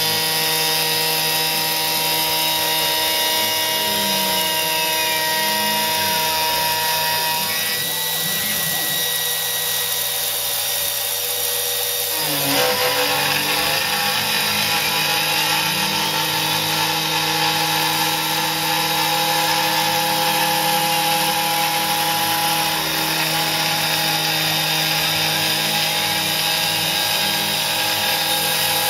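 CNC gantry router's spindle milling aluminium, a steady whine of several tones over the cutting noise, with fainter tones that slide up and down as the cutter follows a circular path. About eight seconds in some tones drop away, and a short rough burst comes about four seconds later before the full sound returns.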